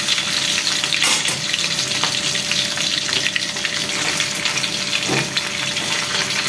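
Pekasam, fermented river fish, sizzling and crackling in hot oil in a wok. A metal spatula knocks and scrapes in the wok, about a second in and again about five seconds in, as the fish is turned and lifted.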